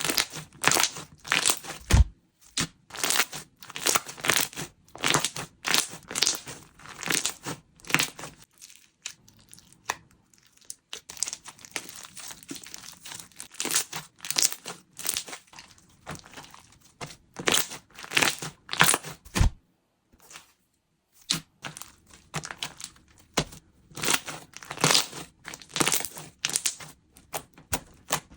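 A chewy salt-bread slime being squeezed and kneaded by hand, giving a run of short crinkly, crackling squishes a few per second, with brief pauses.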